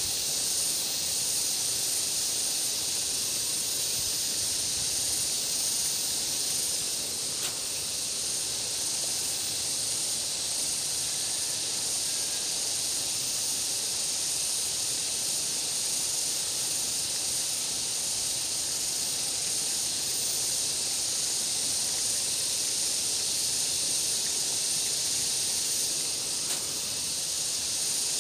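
Steady, high-pitched insect drone from the vegetation around the river, unbroken throughout, with a faint click twice.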